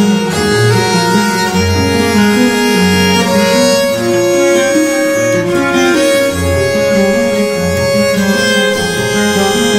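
Instrumental music led by bowed strings, a violin holding long notes over low notes that repeat about once a second.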